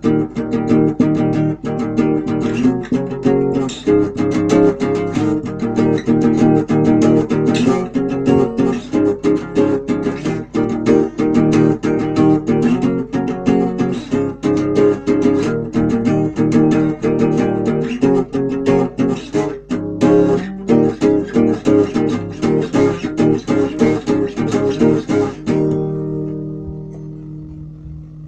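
A guitar strummed in a steady, busy rhythm of chords. Near the end a final chord is left to ring and fade away.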